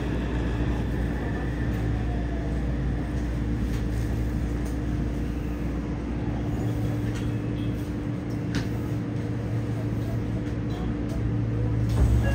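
Steady electrical hum inside a 3000S-series subway car standing still at a station, with a couple of faint clicks about halfway through.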